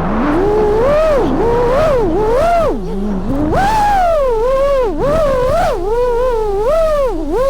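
5-inch FPV freestyle quadcopter's brushless motors and propellers whining, the pitch swooping up and down quickly and repeatedly as the throttle is worked through manoeuvres.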